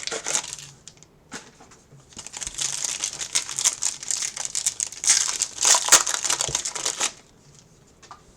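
Plastic trading-card pack wrapper being torn open and crinkled in the hands, a dense crackling run for several seconds that stops abruptly near the end.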